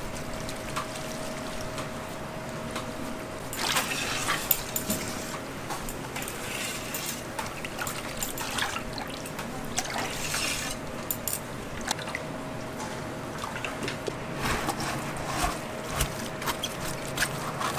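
Water sloshing and splashing in a large stainless steel basin as shredded agar jelly is stirred through it, with small wet clicks and drips. A faint steady hum sounds underneath.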